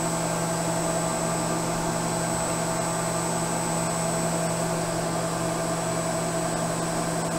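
A CNC vertical milling machine running with a steady hum and a faint high whine. The 3/8-inch end mill is creeping down toward the vise at a feed rate turned nearly to zero.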